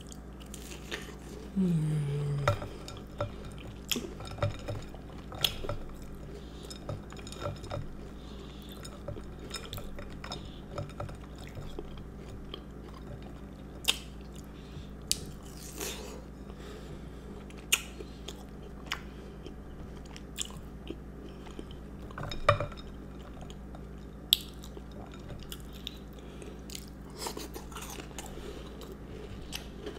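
Close-up chewing and crunching of a chocolate chip cookie, with scattered sharp clicks of cutlery against a dish. About two seconds in, a short low hum falls in pitch.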